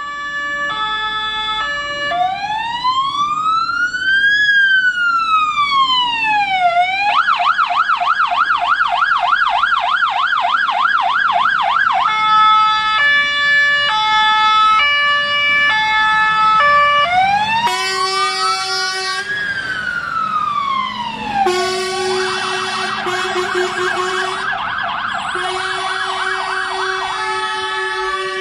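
Fire engine's electronic siren cycling through its tones. It goes from a stepped multi-note pattern to a slow rising and falling wail, then a fast yelp, and the whole sequence repeats about halfway through.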